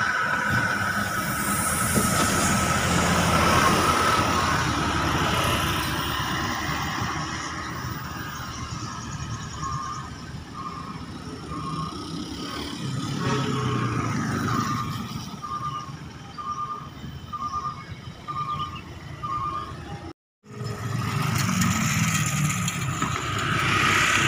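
Buses and motorcycles passing on a road. Engine noise with a steady high whine in the first seconds, then a run of short beeps, about one a second, in the middle.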